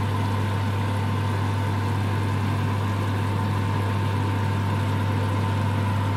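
A steady low machine hum with a fainter high tone above it, even in level and unchanging.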